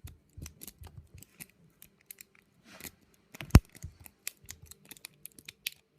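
Half-ball lock pick raking the key-control cylinder of an Abus 78/50 KC combination padlock: rapid, irregular metallic clicks and scrapes of the pick over the pins, with one sharp, much louder click about three and a half seconds in.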